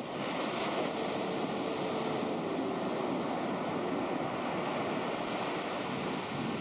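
Ocean surf breaking and washing up the beach, a steady rush of noise, with wind on the microphone.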